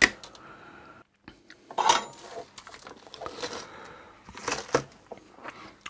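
Tools being handled, with a few sharp clicks and light metallic clinks spread through: the soldering iron set down and a desoldering gun picked up.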